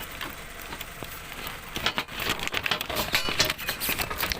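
Clattering and rattling of junk being handled and rummaged through by hand, a quick run of small knocks and rattles starting about two seconds in.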